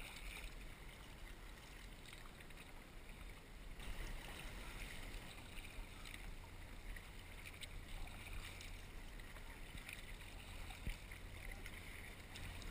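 Water splashing and lapping at a sea kayak's hull as it is paddled through light chop, with scattered small splashes and drips, over a steady low rumble.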